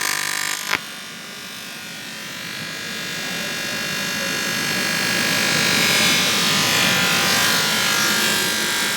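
AC TIG (argon) welding arc buzzing on aluminium, with a sharp click under a second in, after which the arc sound turns to a rougher hiss that slowly grows louder.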